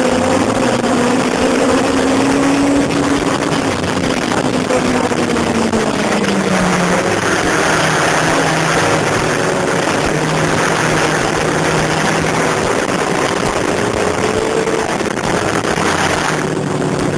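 Sport motorcycle engine running at speed under a heavy rush of wind on the onboard microphone; the engine note holds, drops lower about six seconds in, then stays steady.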